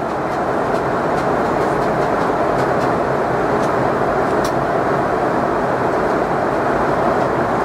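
Steady in-flight cabin noise inside a Boeing 717-200: an even rush of airflow over the fuselage blended with the drone of its rear-mounted Rolls-Royce BR715 jet engines.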